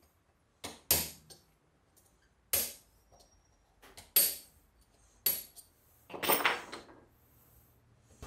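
A screwdriver clacking sharply against the metal hub and spokes of an 1884 Singer sewing machine's handwheel as the seized mechanism is worked on. About six separate metallic knocks come roughly a second apart, ending in a short rattle about six seconds in.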